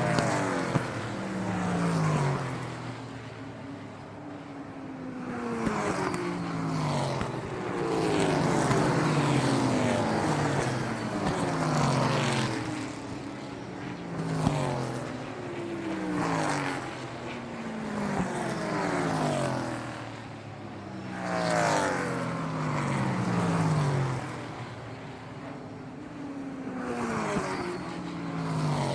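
Car engines passing by one after another. Each engine note swells, then drops in pitch as it goes past, about every one to two seconds.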